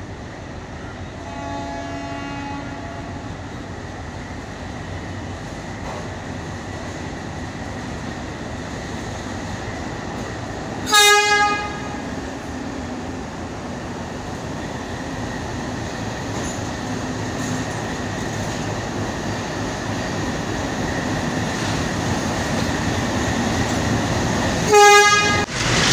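A diesel locomotive runs into the platform pulling its train, its engine rumbling steadily and growing louder as it draws near. A faint horn sounds a second or so in, and the horn then gives two short, loud blasts, one about eleven seconds in and one near the end.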